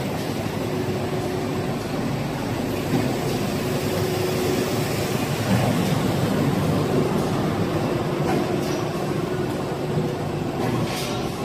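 An HDPE double-wall corrugated pipe production line running: steady mechanical noise from the extruder and corrugator machinery, with a faint steady hum in it.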